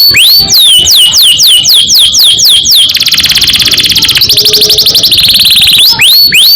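Domestic canary singing loudly: a run of quick downward-sweeping whistles, about four or five a second, that breaks a few seconds in into a fast rolling trill (the 'ngerol' roll) lasting about three seconds, then returns to the falling whistles.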